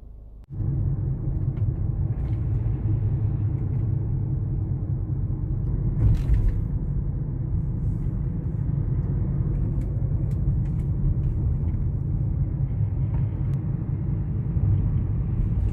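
Steady low rumble of a car driving, with road and engine noise heard from inside the moving car.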